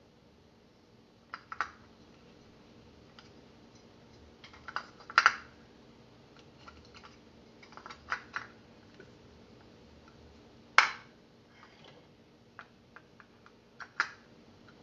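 Scattered clicks and clacks of plastic and wire parts as the Ankarsrum mixer's whisk attachment is handled and its gear housing fitted together, the sharpest clack about eleven seconds in. A faint steady hum lies beneath.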